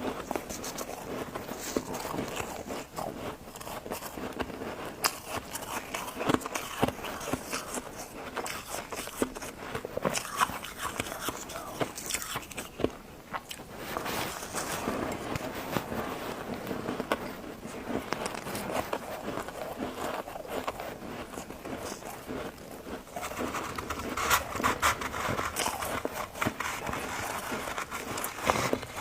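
A person biting and chewing crunchy white freezer frost ice: dense, irregular crunching and crackling with louder bites scattered throughout.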